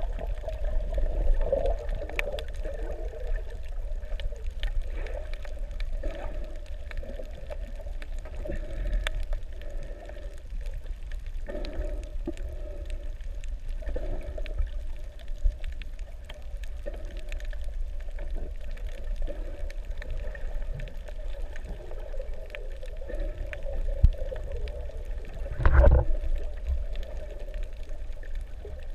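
Underwater sound heard by a camera below the surface: a steady, muffled low rumble of moving water with scattered faint clicks and crackles. A louder rush of water comes a few seconds before the end.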